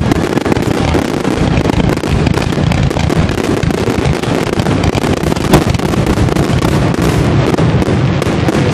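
Aerial fireworks going off in a rapid, unbroken barrage: a dense run of bangs and crackle, with one sharp, louder bang about five and a half seconds in.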